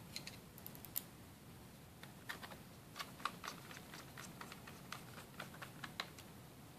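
Faint, irregular clicks and ticks of a small screwdriver fitting and turning small screws into the metal chassis cover of an Asus Eee PC 1005HA netbook, the sharpest clicks about a second in, around three seconds and near the end.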